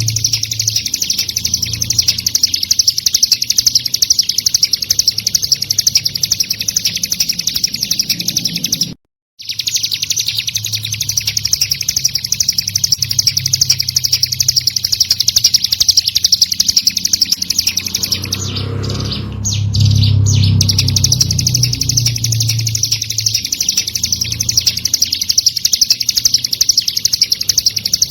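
Recorded song of the ciblek gunung, a very rapid, continuous high-pitched chirping trill played as masteran song-training audio, over a steady low hum. The sound cuts out completely for about half a second around nine seconds in, and a low rumble joins it for a couple of seconds past the middle.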